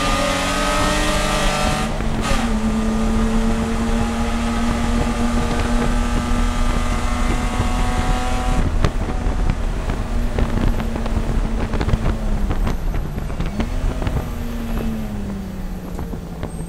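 Spec E30 race car's BMW straight-six running hard at steady high revs. There is a short break in the engine note about two seconds in. Later the revs drop, jump once with a blip and fall away again, with rapid clicks and rattles through the second half.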